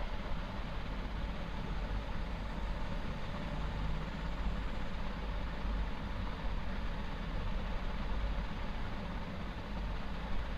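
Onions, green chillies and ginger-garlic paste sizzling steadily in hot oil in a large aluminium pot, frying until the paste's raw smell is gone. A steady low hum runs underneath.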